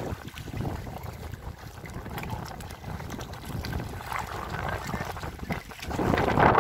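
Wind buffeting the microphone over small waves lapping in shallow water, growing louder near the end.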